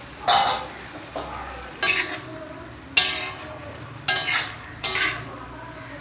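A metal spatula stirring and scraping pork and potatoes in a cast-iron kadai, a sharp clank with a short metallic ring about once a second.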